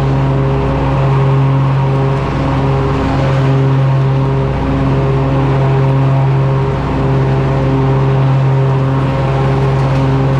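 Kohler engine of a Country Clipper mower running steadily at a constant speed after new ignition coils were fitted, with slight swells in level.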